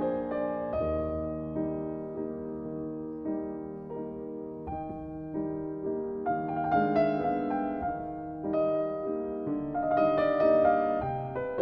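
Background music: a gentle solo piano melody over soft chords.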